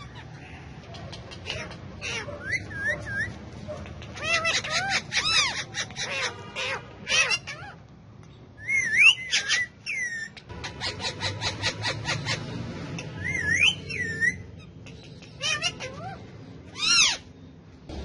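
Indian ringneck parakeets calling: rapid strings of sharp chattering clicks mixed with shrill whistled notes that glide up and down, in loose bursts with short gaps between them.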